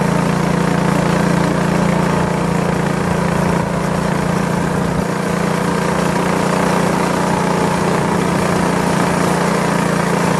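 Minibike's small engine running steadily at riding speed, with tyres crunching over gravel.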